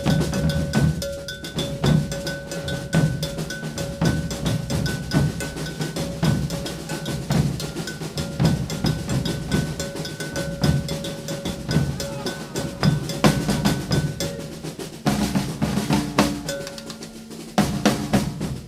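Maracatu percussion ensemble playing a toque: deep alfaia bass drums beating a steady rhythm under busy snare-drum strokes, with an iron gonguê bell ringing through. The pattern changes about fifteen seconds in.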